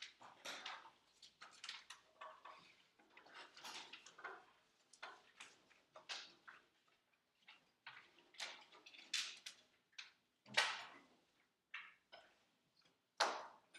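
Faint, irregular clicks and rustles of handling noise, a few each second, with two sharper clicks, about ten and a half seconds in and near the end.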